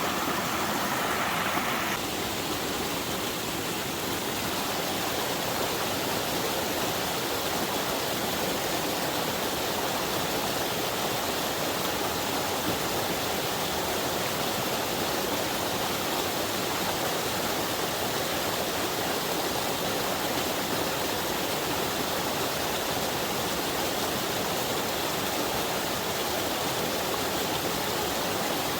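Flowing stream water: a steady, even rushing that eases slightly about two seconds in.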